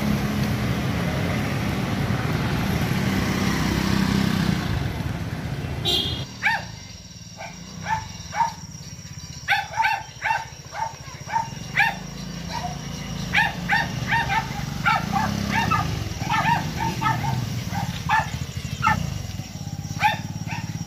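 A motor scooter's engine running for the first six seconds. Then dogs bark over and over in short, sharp barks, with the scooter's engine still running low underneath.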